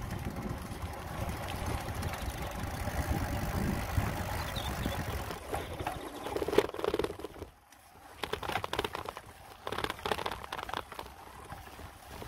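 Wind on the microphone and tyre rumble from a bicycle rolling along an asphalt road. The noise dips sharply about seven and a half seconds in, then comes back in uneven gusts.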